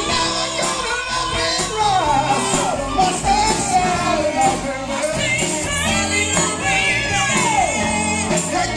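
Live rock band playing: electric guitars and a drum kit, with singers singing into microphones.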